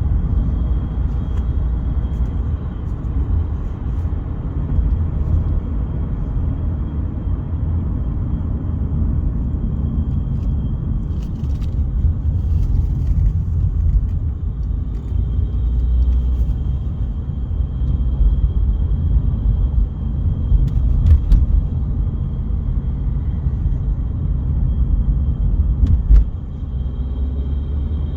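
Cabin noise in a Mercedes C-Class W205 under acceleration: a steady low rumble of engine and road with a thin, continuous high-pitched ringing over it that fades for a few seconds midway and comes back. The ringing is the high-pressure fuel pump's noise leaking into the cabin through a faulty steering shaft boot in the driver's footwell.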